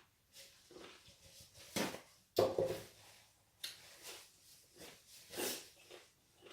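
Close-up eating sounds from a person eating a sour pickle: a few separate short bites, chews and breaths about a second apart, the sharpest about two and a half seconds in.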